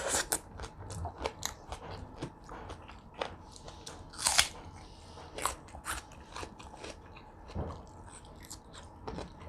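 Close-up eating sounds: a person biting and chewing crunchy food in a string of crisp crunches, the loudest right at the start and a longer crunch about four seconds in.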